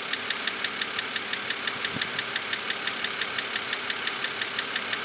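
2006 BMW Z4 3.0si's N52 inline-six idling with a steady, rapid knock, about seven a second, that replacing the lifters did not cure.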